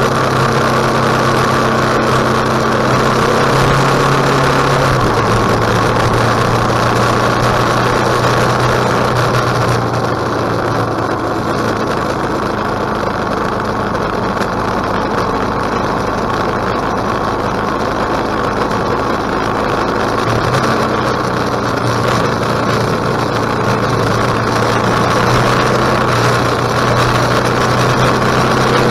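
KTM 1050 motorcycle's V-twin engine running at steady revs, its note dropping slightly about five seconds in and rising again about three quarters of the way through, over a steady rushing noise.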